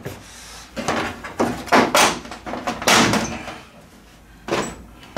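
Large plastic back cover of a 65-inch Sony LED TV being lifted off and handled: several separate knocks and rattles of stiff plastic against the metal chassis.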